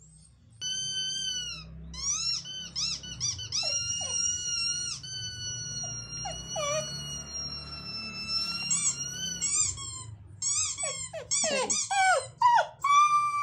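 Dog whining in high, thin squeals. Short rising-and-falling whimpers are broken by one long drawn-out whine in the middle, then quicker squealing whimpers.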